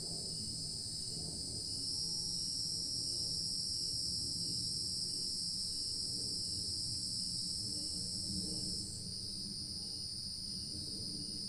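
Insect chorus at dusk, a steady shrill buzz that swells about two seconds in and drops back near nine seconds. A faint, regular chirp repeats about twice a second beneath it, over a low background rumble.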